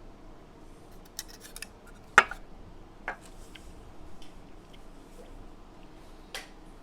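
Small hard glass clicks and knocks, shot glasses handled and set down on a table: a quick cluster of light clicks about a second in, then single sharper knocks about two, three and six seconds in.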